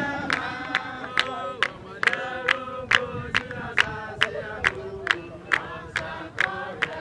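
Several voices singing together over a steady, sharp beat of about three strikes a second.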